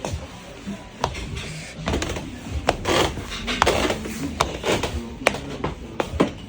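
Irregular knocks, clicks and rustling, like things being handled and moved about.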